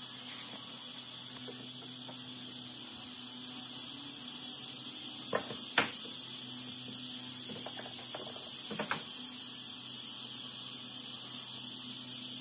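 Wooden pieces knocking and clicking against a chair frame as they are fitted by hand: a handful of sharp knocks in the middle, the loudest about six seconds in. Under them runs a steady hiss and low hum.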